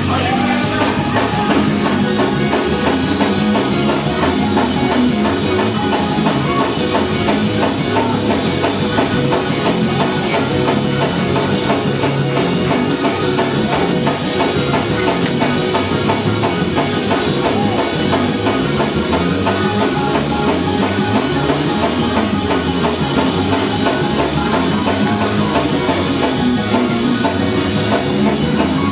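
Gospel praise band playing with a drum kit and guitar, keeping a steady beat without a break.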